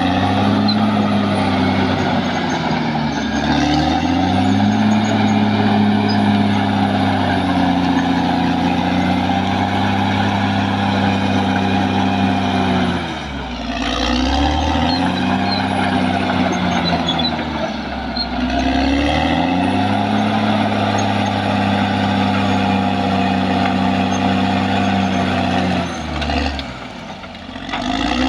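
Caterpillar D6R XL bulldozer's diesel engine running hard, its pitch sagging and recovering about five times as the load and direction change.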